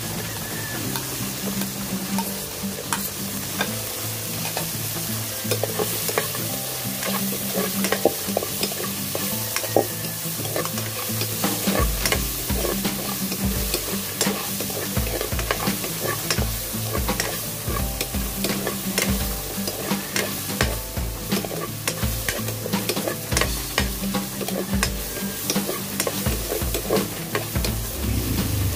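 Pieces of meat sizzling as they fry with onion and tomato in a nonstick wok. A metal ladle stirs and scrapes the pan, making many irregular clicks over the sizzle.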